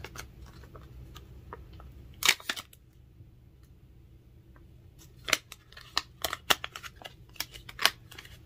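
Foil eye-mask packet being opened and handled: sharp crinkling clicks, a loud cluster about two seconds in, then a run of snaps and crackles in the last few seconds.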